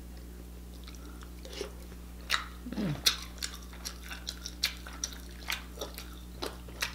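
Close-miked eating of king crab meat: wet mouth smacks and short clicks in a quick irregular string from about two seconds in, with a brief low vocal 'mm' near the middle, over a steady low hum.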